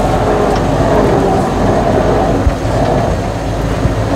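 Engine of a 1948 Ford F6 truck running with a steady low rumble as the truck is driven slowly and lined up.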